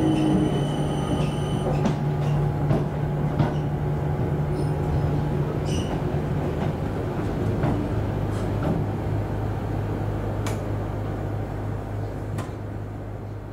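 Class 455 electric multiple unit running slowly alongside a platform, heard from inside the carriage. A steady low motor hum drops in pitch about eight seconds in, with scattered clicks and creaks from the wheels and bodywork. A high whine stops about two seconds in.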